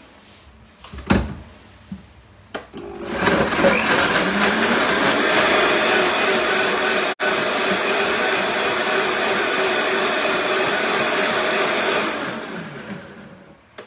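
Blender spinning up after a couple of knocks and running steadily at high speed, blending a watery dressing of sesame seeds, lemon and dates. Its pitch rises as it starts, it breaks off for an instant about halfway, and it winds down near the end.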